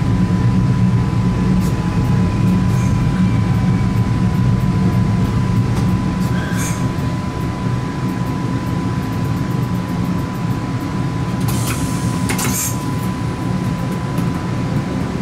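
Inside the driver's cab of a Stadler FLIRT3 electric multiple unit: a steady low drone with a thin continuous high tone over it, and two short sharp sounds about twelve seconds in.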